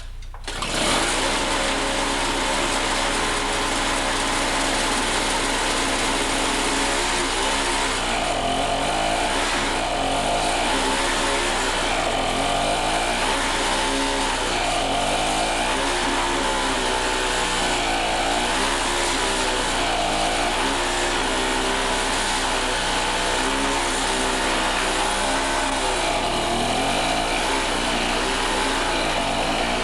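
Gas snow blower engine running loud and steady, coming in sharply about a second in. From about seven seconds on, its note dips and recovers every couple of seconds as it works through about a foot of fresh snow.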